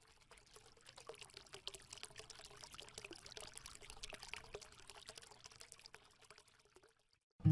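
Faint trickling, pouring water full of small crackles, dying away about six to seven seconds in.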